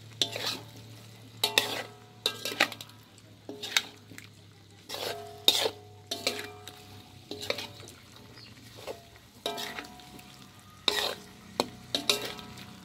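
A metal spatula stirring squid pieces in a large aluminium pot of simmering sauce, scraping and knocking the pot at irregular strokes, about one a second. Each knock makes the pot ring briefly.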